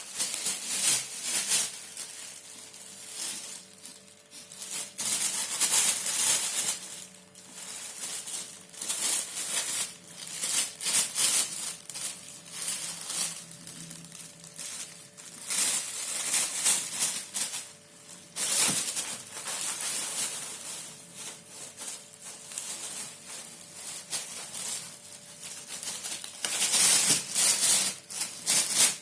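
A noisy toy rattling and crinkling in irregular bursts, each about a second long, as it is shaken and moved about.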